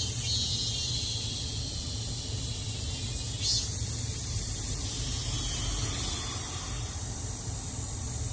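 Cicadas singing, a steady high-pitched buzzing chorus. A louder buzz starts suddenly about three and a half seconds in and cuts off sharply about a second before the end. A steady low rumble runs underneath.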